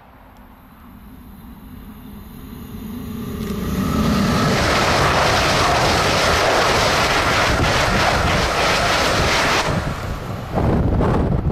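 ICE high-speed electric train passing at speed: its rumble and rush of wheels and air build over the first few seconds, stay loud while the train goes by, and drop off suddenly as the tail passes, followed by a brief gust of wind buffeting the microphone in its wake.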